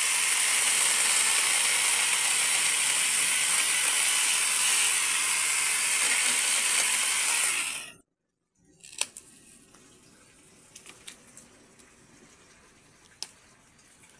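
Kamolee 8-inch brushless battery mini chainsaw running steadily and cutting bamboo for about eight seconds, then stopping abruptly. Afterwards only a few faint clicks and knocks.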